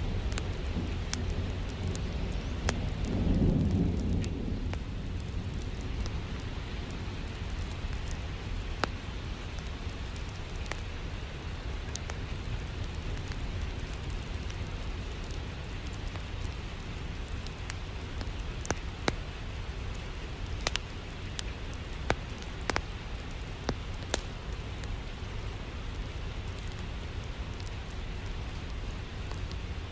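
Steady rain with a low rumble of thunder a few seconds in, and scattered sharp crackles from a wood fire in a fireplace, more of them past the middle.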